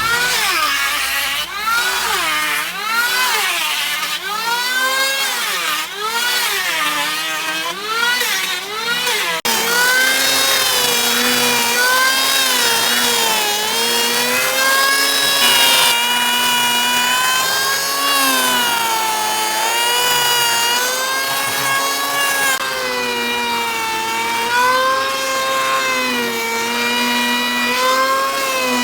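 Handheld electric power tool working a thick gõ đỏ (red wood) slab: a high motor whine whose pitch keeps dipping and recovering as the tool is pushed into the wood and eased off. The swings come quickly, about once a second, at first, and turn slower and broader about a third of the way in.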